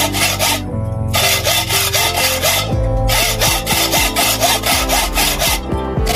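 Hand hacksaw cutting through a slotted steel angle bar in quick back-and-forth strokes, pausing briefly about a second in, near the middle and near the end. Background music plays underneath.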